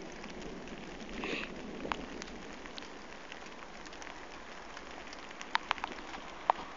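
Light rain falling steadily, with a few sharp drip taps near the end.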